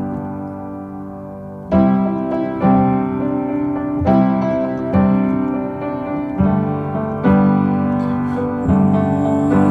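Background music: piano playing sustained chords, a new chord struck about every second, in an instrumental break between sung verses of a song.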